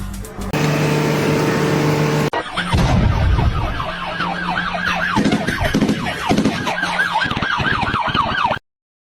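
A siren yelping, its pitch sweeping up and down several times a second, after a couple of seconds of steady held tones. It cuts off suddenly near the end.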